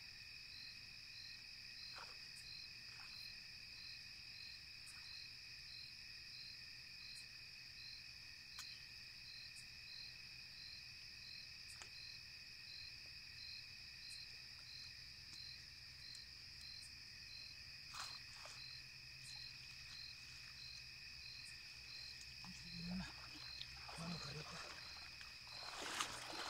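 Faint chorus of night insects: a steady high trilling with a chirp repeating about twice a second. Near the end, sloshing and rustling as a cast net full of weeds is lifted out of the water.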